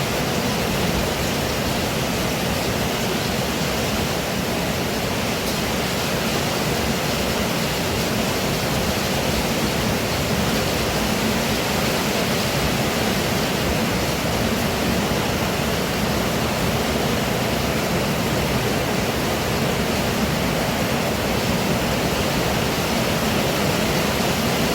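Heavy rain pouring steadily, a dense, even rush of water without a break.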